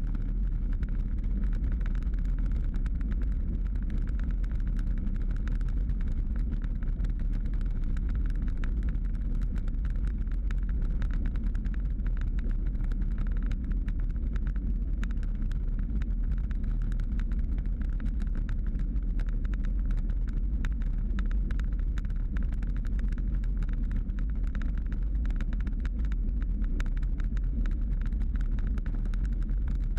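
Steady wind buffeting on a bicycle-mounted camera's microphone, mixed with tyre rumble from riding on asphalt.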